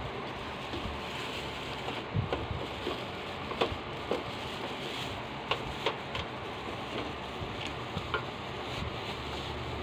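Clear plastic wrapping crinkling and rustling as it is pulled off a new electric hot plate, with a few short sharp clicks scattered through, over a steady background hiss.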